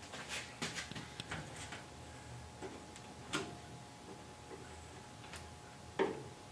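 Irregular clicks and knocks from a hand-squeezed caulking-style dispensing gun being pumped to lay adhesive. There is a cluster of clicks in the first two seconds, then single clicks about a second apart, the loudest near the end, over a faint steady hum.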